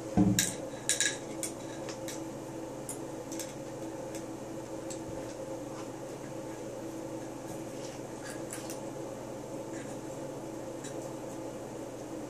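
Metal rifle parts being handled: a few sharp metallic clinks and knocks from the AR-15 upper receiver in the first second or so, then faint scattered ticks over a steady low hum.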